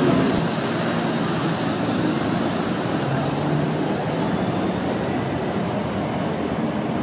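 Bombardier Flexity Outlook low-floor tram pulling away from a street stop and running off down the track, heard as a steady rumble of running noise with a low hum that comes and goes.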